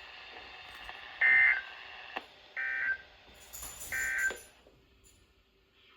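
Emergency Alert System end-of-message data burst: three short, shrill warbling digital tone bursts about a second apart, over radio hiss that cuts out after the third. The tones mark the end of the alert broadcast.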